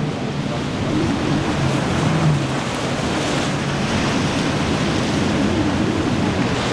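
Rough surf breaking and washing at an inlet, with wind buffeting the microphone. A faint low hum comes and goes underneath.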